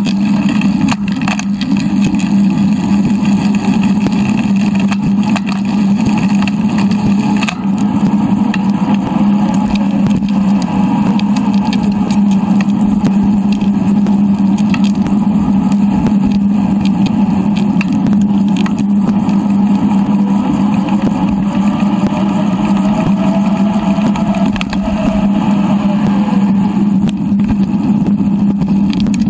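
Steady rolling and wind noise of a bicycle ride picked up by a handlebar- or body-mounted action camera and played three times too fast, heard as an unbroken drone with a strong constant low hum.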